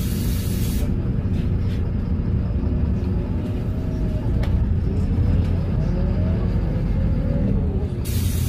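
Cabin sound of a LiAZ 5292.22-01 city bus on the move: its MAN E0836 compressed-natural-gas engine runs with a steady low rumble. Over the rumble, a faint whine rises and falls in pitch.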